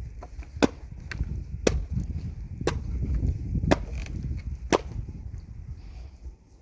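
Five sharp knocks about one a second, with fainter knocks between them, over a low rumble.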